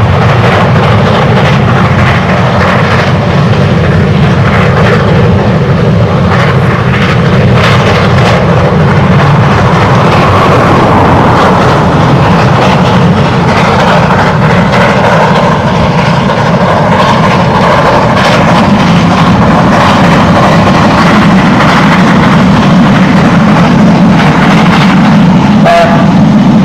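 Two steam locomotives double-heading a train and working hard: loud, steady exhaust from both engines as the train runs past.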